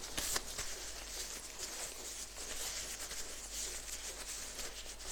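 Faint rustling with a few light clicks from handling the plastic containers of epoxy resin, the clearest click just after the start.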